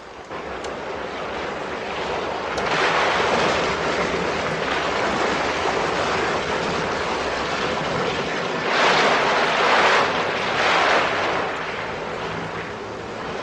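Loud rushing hiss of liquid nitrogen spraying and venting as gas from a ruptured tanker. It swells louder about three seconds in and again around nine to eleven seconds.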